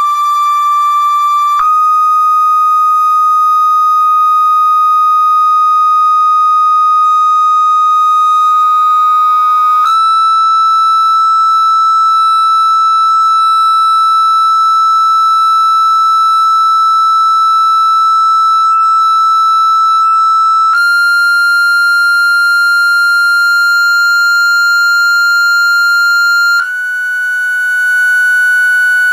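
Loud, steady, high sine-wave test tone from a speaker, with faint overtones above it. The frequency steps up four times, each step held for several seconds, as it is tuned to set sand resonating into cymatic patterns.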